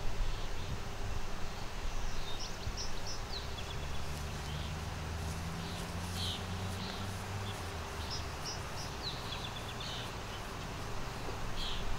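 Outdoor ambience: small birds chirping in short high bursts every second or two over a steady low rumble.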